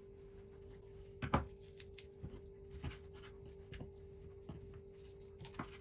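Raw chicken being cut and handled on a wooden cutting board: a few scattered soft knocks and taps, the loudest about a second in, over a faint steady hum.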